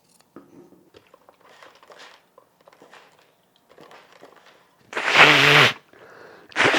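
Quiet rustling and crinkling of fabric being handled, then about five seconds in a loud, rough vocal burst from a person lasting under a second.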